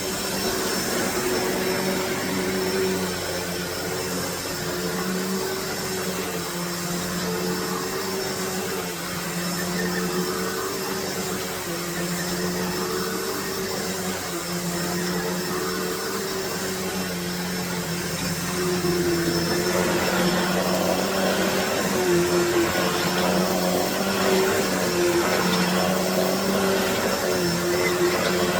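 2008 Hoover Deluxe Elite Rewind upright vacuum cleaner running, a steady motor hum with a rushing air sound. About two-thirds of the way through it gets louder and the rush grows stronger.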